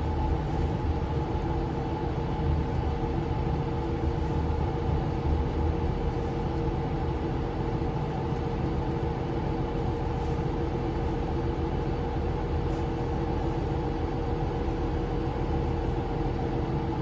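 Cabin sound of a Mercedes-Benz Citaro C2 LE city bus driving along: steady engine drone and road rumble with a few even, steady tones.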